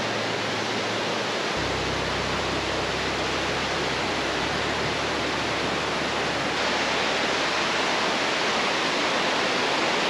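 Mountain stream rushing over rocks: a steady, even rush of white water that grows slightly louder about two-thirds of the way through.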